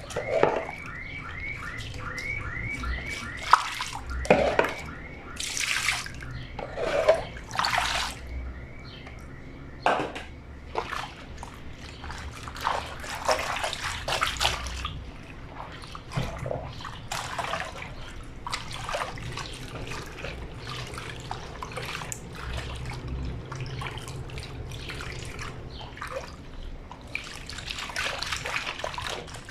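Water splashing and sloshing as a blanket is hand-washed in a granite lavadero (washboard sink), with irregular scrubbing and several sharper splashes in the first ten seconds. A high chirp repeats about three times a second for the first six seconds or so.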